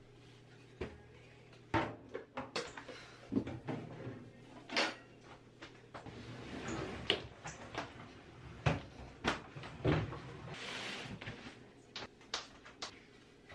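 Household furniture and appliances being handled and set down: a wooden slatted shelf and a microwave give an irregular series of sharp knocks, clunks and scuffs, with two longer scuffing stretches about six and eleven seconds in.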